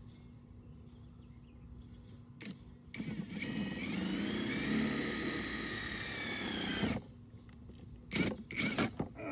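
Power drill running for about four seconds, speeding up at the start and then holding steady before cutting off suddenly. A few short knocks follow near the end.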